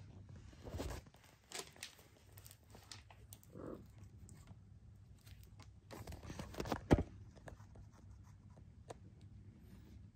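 Soft rustling and scuffing of a cat shifting on a rug and grabbing a plush toy, with scattered light clicks and one sharper thump about seven seconds in.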